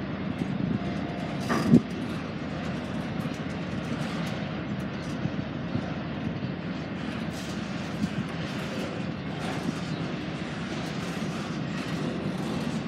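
Freight train cars rolling past on the rails: a steady rumble with scattered wheel clicks, and one louder knock about two seconds in.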